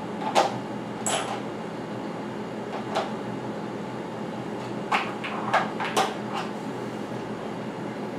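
Metal Allen keys and hand tools clinking and knocking as they are handled in a tool tray: a handful of separate sharp clicks, the loudest about half a second in, over a steady low hum.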